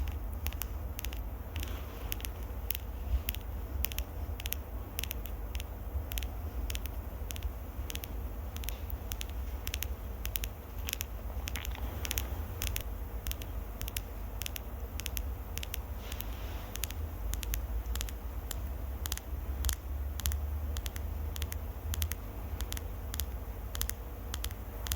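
Close-miked ASMR trigger sounds: a dense run of crisp, irregular clicks and crackles, several a second, over a low rumble.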